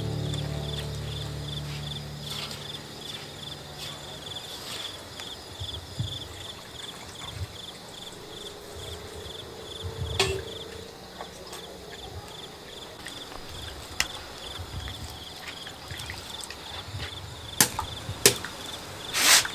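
Insects chirping steadily, about three chirps a second, with scattered sharp knocks and clicks, the loudest of them near the end.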